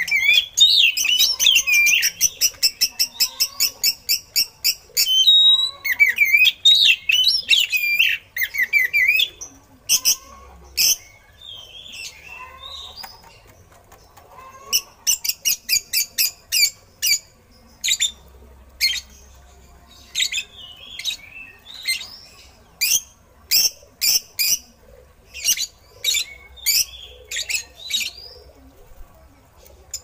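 Oriental magpie-robin (kacer) singing in a cage: a fast, varied warbling phrase for about the first nine seconds, then a long run of sharp, separate notes repeated one after another.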